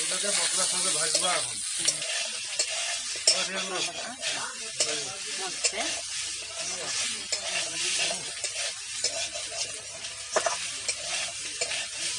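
Pieces of kuchia swamp eel sizzling as they fry in oil in a metal kadai, stirred with a metal spatula that scrapes and clicks sharply against the pan.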